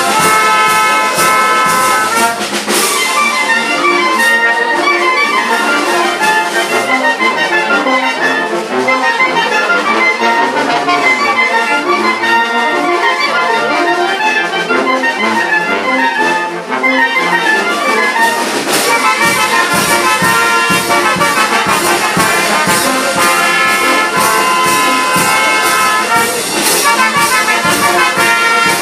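Live brass band playing dance music with a bass drum keeping a steady beat. The low end of the band grows fuller about two-thirds of the way through.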